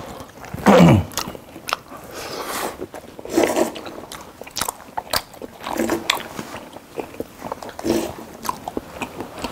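Close-up eating sounds: chewing and biting into food, with crunchy bites and slurps of sauced noodles. A short vocal sound sliding down in pitch comes about a second in and is the loudest moment.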